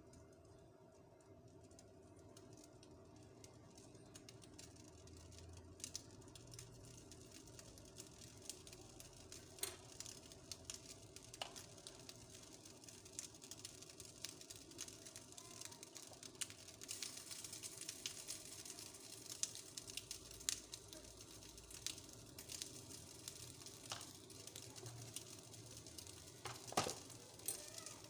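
Faint kitchen handling sounds: scattered light clicks and taps, and from about halfway in a hiss that slowly grows as water heats in a pot on the stove for a herbal qahwa.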